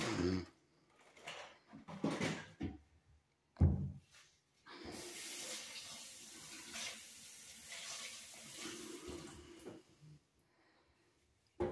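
A few knocks and clatter in the first few seconds, the loudest about three and a half seconds in. Then a kitchen tap runs water into a stainless steel sink for about five seconds, a steady rush that stops abruptly near the end.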